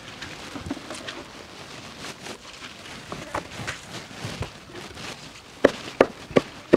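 Cleaver chopping pork belly on a wooden chopping board. For most of the time there are only faint scattered knocks of cutting. Near the end a steady run of loud chops begins, about three a second.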